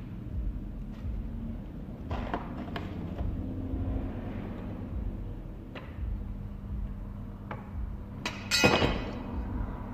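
Small parts and tools being handled on a workbench: scattered light clicks and knocks, with one louder clatter near the end.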